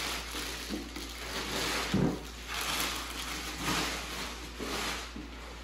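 Handling noises: rustling and soft knocks, with one louder thump about two seconds in.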